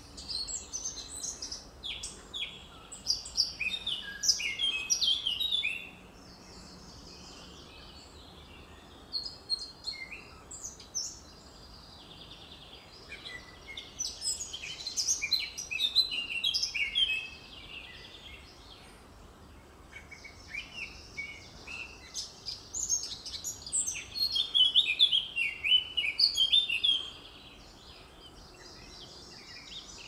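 Male Eurasian blackcap singing: four bouts of quick, melodious warbling with clear whistles, each a few seconds long, with short pauses between.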